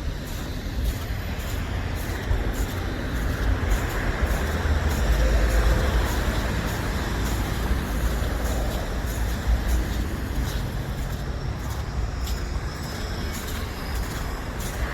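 Street traffic with a motor vehicle driving past, its engine and tyre rumble swelling to loudest about five to six seconds in and easing off. Faint, regular crunching footsteps in snow run underneath.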